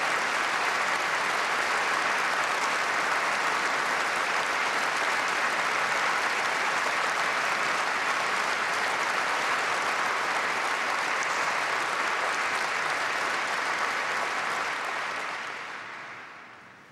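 Large audience applauding steadily, the applause dying away over the last couple of seconds.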